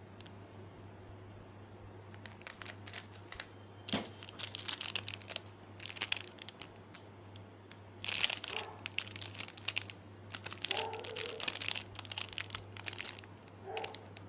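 Shiny plastic snack wrappers crinkling in irregular bursts as they are handled and turned over, with a steady low hum underneath.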